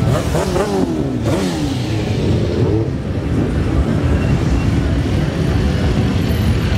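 Motorcycles riding slowly past on a crowded street: a sport bike's engine revs rise and fall several times in the first three seconds over the steady running of many motorcycle engines.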